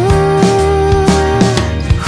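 Background music: a Mandarin pop ballad, with a singer holding one long note over bass and a steady drum beat.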